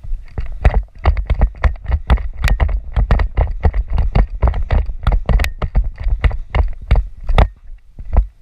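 A rapid, uneven run of loud thumps and knocks, about four a second, with a short pause near the end.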